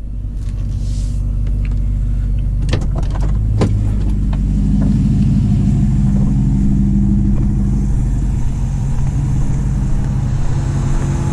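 Truck engine running steadily, with a couple of sharp knocks about three seconds in.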